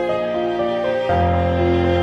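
Background music: a melody of held notes moving over sustained chords, with the bass and chord changing about a second in.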